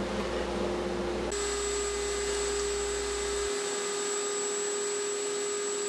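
Table saw running for about the first second, then a router in a router table running steadily with a high, even whine.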